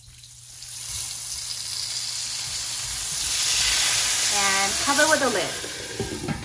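Lukewarm water poured into a hot oiled wok of pan-fried buns, hissing and sizzling as it hits the hot oil and swelling to its loudest about three to four seconds in: the start of the lidded steaming stage of shengjianbao. Near the end a glass lid is set onto the wok.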